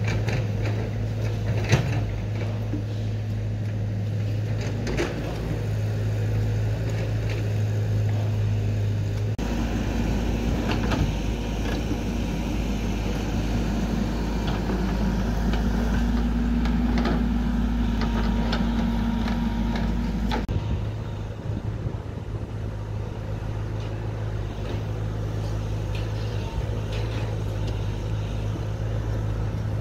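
Construction machinery engine running steadily, its low hum changing abruptly twice, with scattered clicks and knocks from work on the site.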